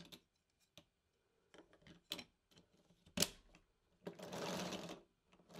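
Light clicks of 3D-printed PLA parts against steel pins and ball bearings as a cycloidal reducer's disc is fitted back in place, then a rapid rattling lasting about a second near the end, as the disc and bearings move against each other.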